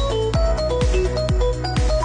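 Electronic dance music with a steady kick-drum beat, about two beats a second, under a melody of short synth notes.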